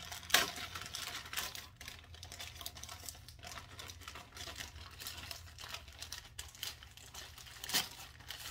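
A gray plastic poly mailer being ripped open and crinkled by hand, with a sharp tear about a third of a second in, then irregular rustling and crackling as the book inside is worked out of it.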